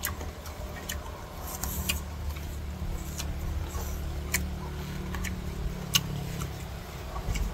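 Steady low hum of an idling car with its air conditioning running, under scattered sharp clicks and crunches from people biting and chewing crisp unripe mango.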